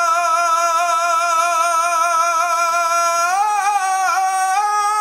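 A single unaccompanied voice singing a Bengali Islamic song, holding one long note with a slight waver. About three seconds in it rises a step, wavers down and back, then drops to the first note near the end.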